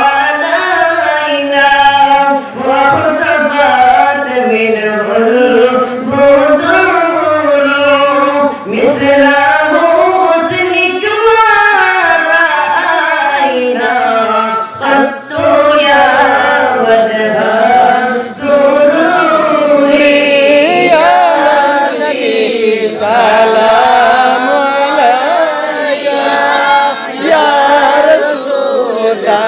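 A group of men and boys singing a devotional Islamic naat (milad sharif) together, unaccompanied, in a long, winding melody with slides between notes and only brief breaks for breath.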